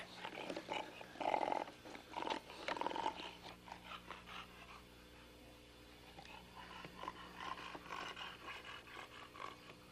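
Bulldogs panting with rough, noisy breaths, loudest in the first few seconds, easing off in the middle and picking up again near the end.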